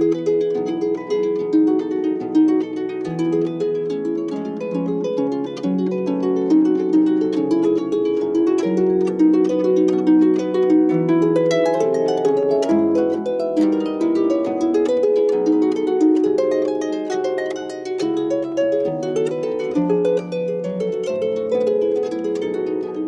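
Plucked string instrument playing a flowing run of ringing notes that overlap, mostly in the middle-low register.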